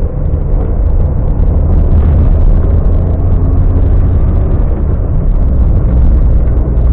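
Suzuki Alto 800 being driven, heard from inside the cabin: a steady low rumble of its three-cylinder engine and road noise.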